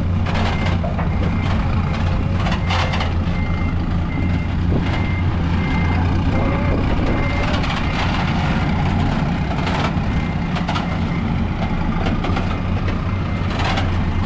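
Heavy diesel truck engine running steadily under a reversing alarm that beeps over and over at about one and a half beeps a second. A few short sharp noises cut in along the way.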